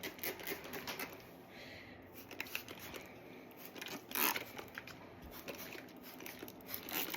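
Short hissing spritzes from a spray bottle of detangling conditioner being misted onto a dog's coat, the clearest about four seconds in and another near the end, among small clicks and rustles of handling.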